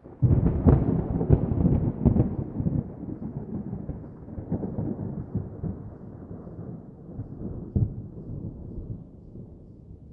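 A thunderclap breaks suddenly, crackling for about two seconds, then rolls on as a low rumble that slowly dies away, with one more short crack near the end.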